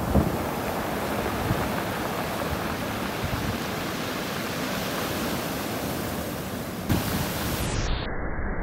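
Choppy sea surf washing up the shore in a steady rush, with wind buffeting the microphone in a few low gusts. About seven seconds in the sound changes and turns duller near the end.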